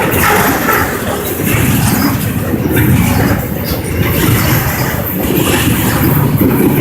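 Norfolk Southern freight train rolling past close by: a steady, loud rumble and rattle of wheels on the rails.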